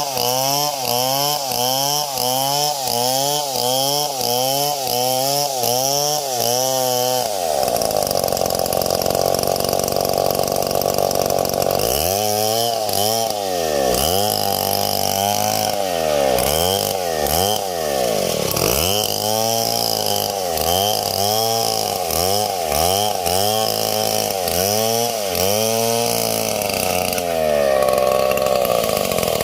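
Chainsaw engine running through a cut in wood. Its pitch swings up and down about twice a second, then holds high and steady for several seconds from about seven seconds in, then dips and rises again.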